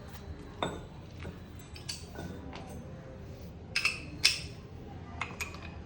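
Metal tools and parts clinking as they are handled, a string of light clinks with two louder, ringing ones about four seconds in.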